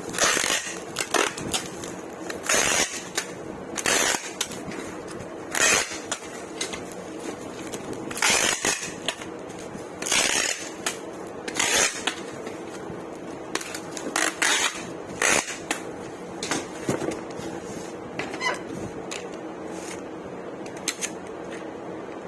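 Electric kettles and their packaging being handled while packing: irregular short rustles, scrapes and knocks about every one to two seconds, over a steady hum.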